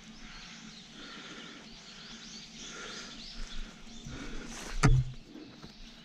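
Small birds chirping in woodland over faint rustling as a hiker moves through dense undergrowth. About five seconds in there is a single sharp crack, the loudest sound.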